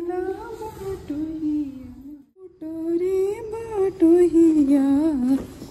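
A woman's voice singing a Chhath Puja devotional folk song: long, wavering held notes without instruments, with a short pause about two seconds in.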